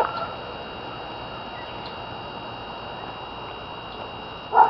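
Steady background hiss with a faint, unbroken high-pitched whine.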